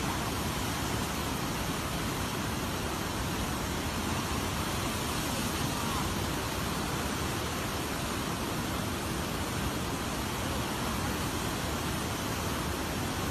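Rushing floodwater: the steady, even noise of a swollen river churning in turbulent waves.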